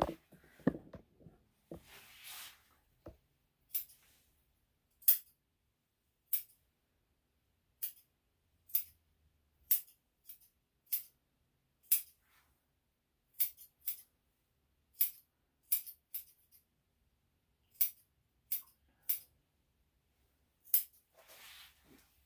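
Grooming scissors snipping the fur on a small dog's leg and paw. The snips are single and sharp, about eighteen at an uneven pace of roughly one a second.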